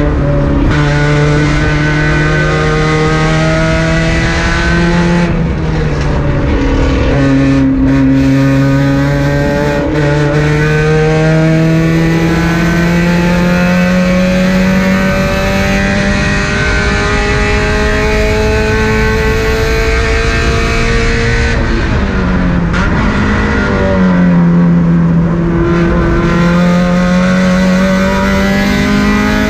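A car's engine running hard at track speed. Its pitch climbs in long pulls under acceleration and drops sharply twice, a few seconds in and again after about twenty seconds, as it comes off the throttle for corners.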